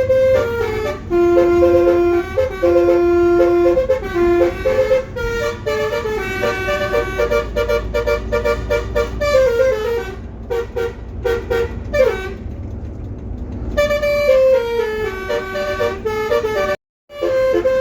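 Basuri telolet multi-tone bus horn playing a tune in stepped notes over the low rumble of the bus engine. The sound breaks off for a moment near the end.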